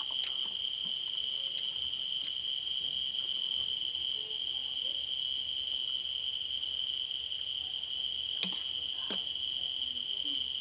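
Crickets trilling in a steady, unbroken high tone, with a few short clicks from eating by hand.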